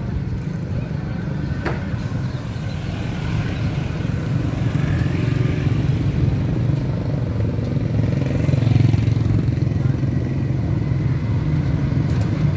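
Motorcycle engines running close by in a busy street market, a steady low rumble that grows louder from about four seconds in, with people talking in the background.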